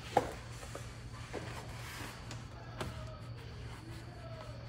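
Work handling noises: a sharp click just after the start, a few fainter taps and clicks, and brief faint squeaks, all over a steady low hum.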